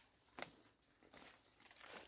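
Faint, scattered rustling and crinkling, with a sharper click about half a second in.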